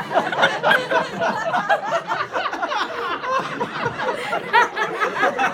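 Audience laughing loudly, many voices at once, breaking out suddenly and carrying on.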